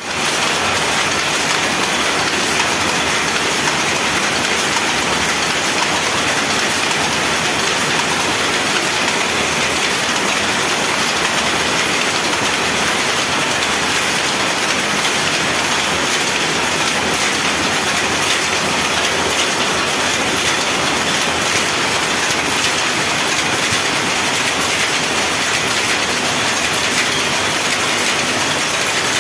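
Power looms with jacquard heads running together, a loud, steady clatter of many fast strokes that blend into one continuous noise.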